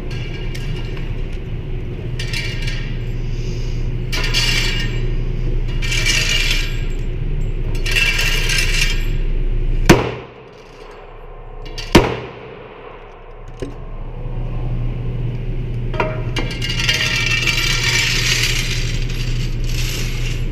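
Two gunshots about two seconds apart, near the middle, over a steady low hum and repeated hissing swells.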